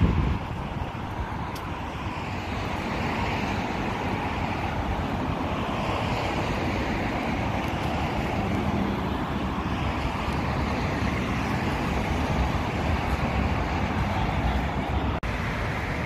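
Steady road-traffic noise mixed with wind on the microphone, with a brief dropout about fifteen seconds in.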